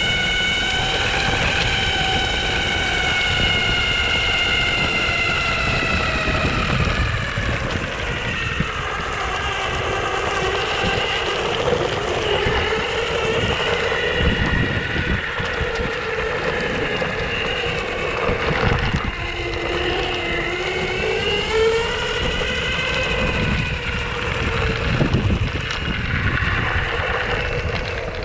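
Onsra Black Carve electric skateboard's belt-drive motors whining under a steady low rumble of the ride. The whine slides down in pitch several seconds in, dips again a little past the middle and climbs back up, following the board's speed.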